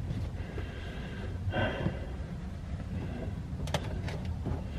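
A man breathing hard and straining while trying to tighten a plumbing fitting by hand, with two sharp clicks near the end over a steady low hum.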